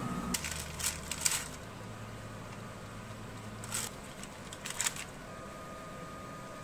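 Short rustles and light taps of a silicone basting brush on chicken and parchment paper in an air-fryer basket. A quick cluster comes about half a second in, then single ones near four and five seconds in.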